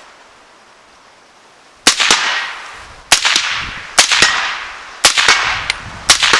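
Five suppressed 300 Blackout shots, supersonic 125-grain loads, from a Springfield Saint pistol through a Griffin 30SD silencer, fired about a second apart starting nearly two seconds in. Each shot is a sharp crack followed by a long fading echo.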